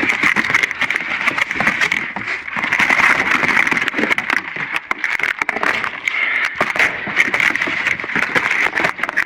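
Dense crackling, rustling and knocking of debris being pulled and shifted in a dumpster, over a steady high-pitched drone.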